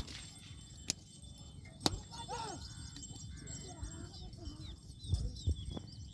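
Distant shouting voices over a steady wind rumble on the microphone, with a few sharp clicks in the first two seconds and low thumps about five seconds in.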